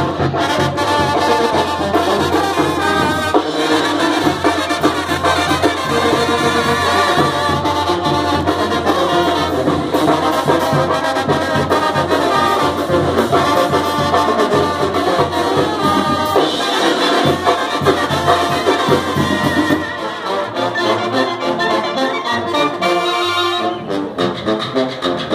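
Live Mexican banda music: trumpets, trombones and clarinets playing together over bass and percussion. About twenty seconds in the bass drops out and the band plays softer.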